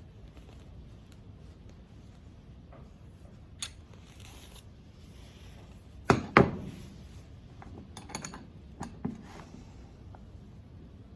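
Small hard parts being handled and set down: two sharp knocks with a short ring about six seconds in, then a few lighter clicks.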